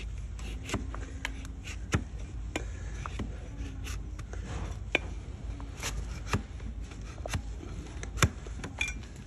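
A flat hoof-paring blade cutting through an overgrown donkey hoof wall and striking the wooden block beneath, as the hoof is trimmed back. It gives about a dozen sharp, irregular cuts, the loudest near the end.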